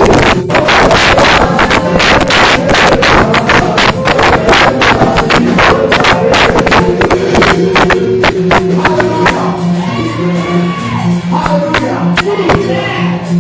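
Loud worship music with a fast, steady percussion beat of about four strokes a second. Past the middle the beat thins and a wavering melody line stands out over held low notes.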